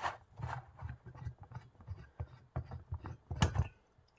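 Ozark Trail mini stove and its fuel canister being handled as the stove is unscrewed from the canister. Irregular small metal clicks and low knocks, with a louder clatter about three and a half seconds in.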